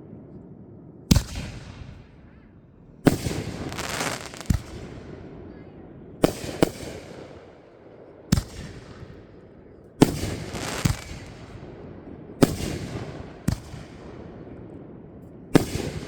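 Fireworks going off: about ten sharp booms spaced a second or two apart, each fading out, a few trailing into crackling.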